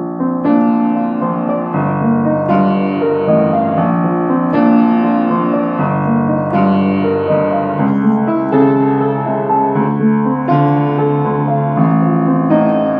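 Piano playing an instrumental interlude between sung verses of a song, a new chord struck about every two seconds.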